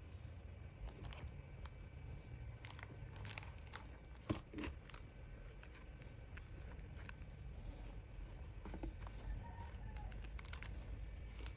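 Faint handling of small cardboard and plastic toy packaging being opened: scattered clicks, crinkles and scrapes, with one sharper click about four seconds in.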